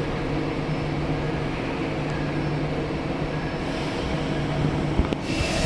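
Steady hum of a robotic welding cell's equipment, with a few held tones over an even noise. A sharp click about five seconds in is followed by a hiss starting near the end.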